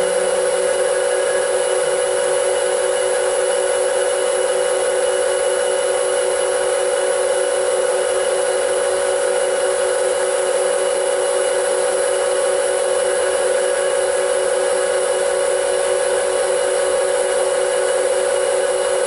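Steady mechanical hum and hiss of machinery in a Class 66 diesel locomotive's engine room, with one strong held tone that does not change.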